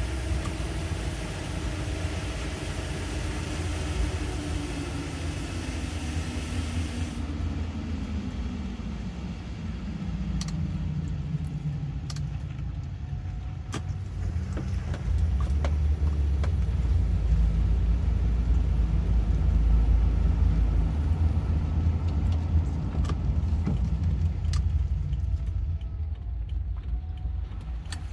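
Car driving in heavy rain, heard from inside: a wet-road hiss with an engine note falling as the car slows, the hiss stopping after about seven seconds. Then a steady low engine and road rumble with scattered sharp clicks.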